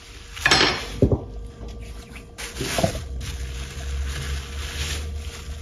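Tap water running over hands being washed, starting about two and a half seconds in, after a couple of short knocks.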